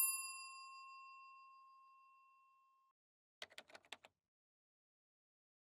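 A single bright chime, struck once and ringing away over about two seconds, followed about three and a half seconds in by a short run of faint clicks.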